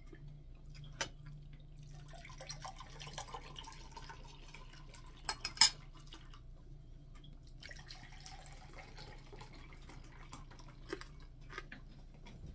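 Someone eating dried fish and rice by hand from a plate: scattered light clinks and taps of dishes and cutlery, with soft eating noises in between. The loudest is a sharp pair of clinks about five and a half seconds in.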